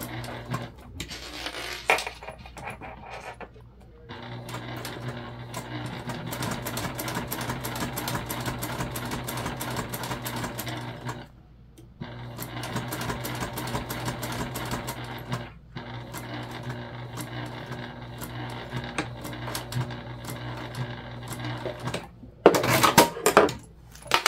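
Electric sewing machine stitching through vinyl, running steadily in stretches of several seconds with a low hum and fast needle ticking, stopping briefly twice. Near the end the stiff vinyl piece is pulled off the machine with a loud rustle.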